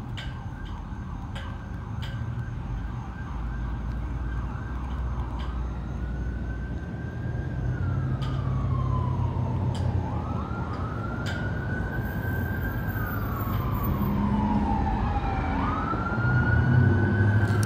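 A siren wailing in slow sweeps, its pitch rising and then falling, over a low traffic rumble. It starts about five seconds in and grows louder toward the end.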